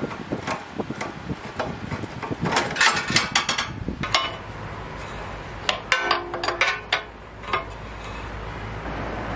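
Steel spanner clinking and clicking against the bolts of a motorcycle's rear end as they are undone. The clicks come in two bursts of quick metallic clicks, about three seconds in and again around six to seven seconds in, with scattered single clicks between.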